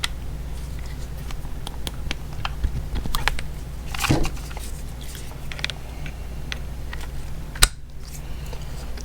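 Small metal clicks and taps of a 3/8-inch-drive swivel socket being handled and pushed onto the square drive of a cordless right angle impact wrench, with one sharper click near the end.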